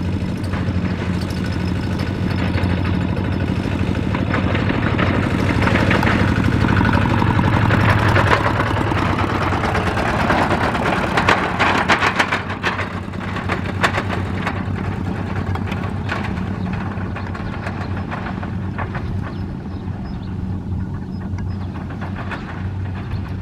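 Single-cylinder diesel engine of a two-wheel walking tractor hauling a trailer, running steadily at working speed. It grows louder as it drives past about a third of the way in, with a spell of knocking and rattling just after, then eases off as it moves away.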